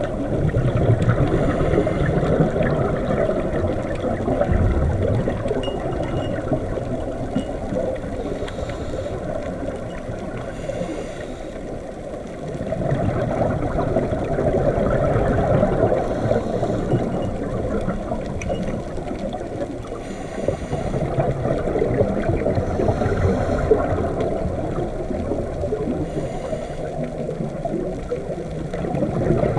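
Muffled underwater ambience: a steady low rush and gurgle of water, swelling and easing every several seconds.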